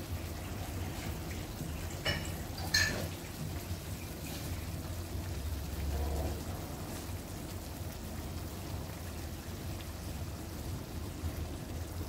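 Pan of vegetable stew simmering on a gas stove, a steady liquid hiss, with a couple of sharp clicks about two to three seconds in.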